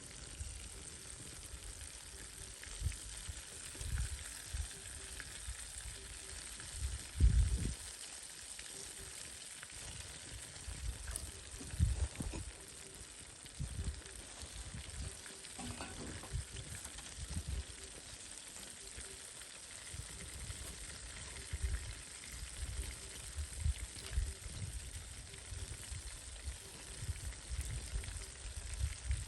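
Chicken karaage deep-frying in hot oil, a steady sizzling hiss throughout. Irregular low thumps run underneath, the loudest about seven seconds in.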